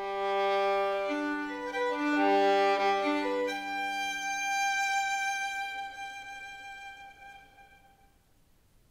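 Solo violin playing a slow melody over a held low note, then ending on one long high note that fades away with reverberation near the end.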